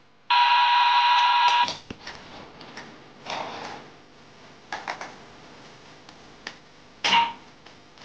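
Toy washing machine's electronic tune ending on a held buzzy note of about a second and a half, the drum having just stopped. Then light plastic clicks and taps of toys being handled, with a louder click about seven seconds in as the washer's door is opened.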